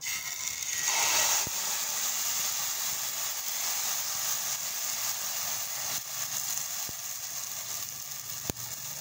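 Pumpkin pancake batter sizzling and crackling in a hot oiled pan as it is poured in and spread with a wooden spoon. The sizzle is strongest in the first second and a half, then settles to a steady crackle, with a few faint clicks.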